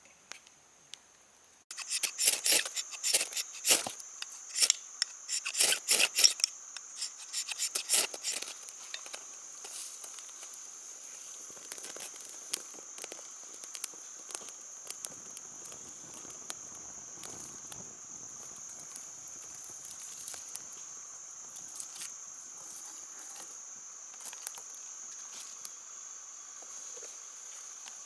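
Insects droning steadily at one high pitch. Over it comes a run of sharp crackles and clicks for the first several seconds, thinning to scattered clicks afterwards.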